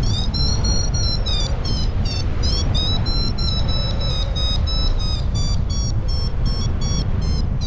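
A paragliding variometer beeping in quick high pulses, about three a second, its pitch shifting a little; the beeping signals that the glider is climbing. Heavy wind noise rumbles on the microphone underneath.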